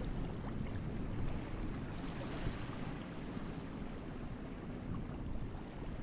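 Small surf waves running up the beach and washing back: a steady rushing hiss that swells briefly about two seconds in, with wind rumbling on the microphone.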